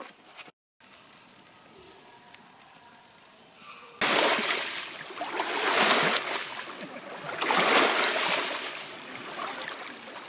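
Small lake waves washing onto a pebbly shore, swelling and falling back in surges about every two seconds. The sound starts suddenly about four seconds in.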